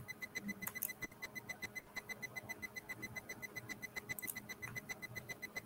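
Faint, rapid electronic ticking: a high tone pulsing evenly about eight times a second, with two brief clicks about a second in and about four seconds in.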